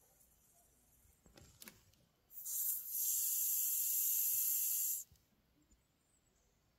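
Mexican hognose snake hissing once while swallowing a mouse: a steady, breathy hiss of nearly three seconds that starts about two seconds in and stops abruptly, after a couple of faint clicks.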